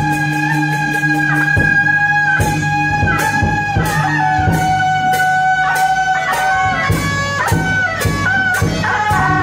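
Temple procession music: a loud, sustained wind-instrument melody over a low drone and regular percussion beats.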